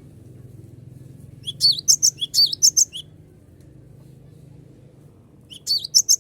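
Cinereous tit singing: a burst of rapid, repeated high chirping notes about a second and a half in, and another starting near the end. A faint steady low hum lies underneath.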